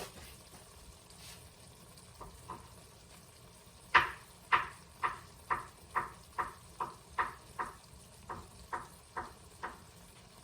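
A hand pepper mill being twisted in short strokes, about fourteen quick crunching grinds at two or three a second, cracking black peppercorns.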